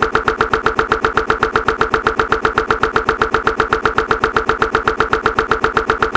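A short sound snippet looped over and over very fast, about seven identical repeats a second, making a steady buzzing, engine-like stutter.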